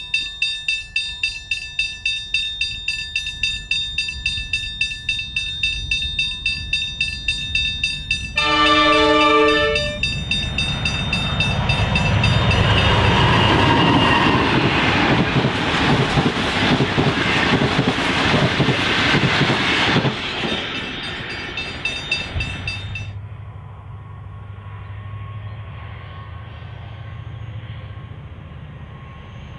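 NR class diesel-electric locomotive's horn sounding one chord for about a second and a half, then the locomotive and its stainless-steel passenger cars running past loudly, the rumble fading after about ten seconds. Quieter wheel clatter comes before the horn. After a cut, a distant diesel locomotive's engine drone is heard near the end.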